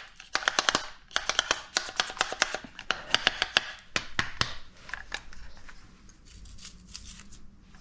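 Wood shavings being cleared by hand out of a hinge-drilling jig: quick scratchy clicks and rattles of chips against the jig, thinning to scattered ticks over the last few seconds. The shavings are packed in because the jig has no room for them to escape during drilling.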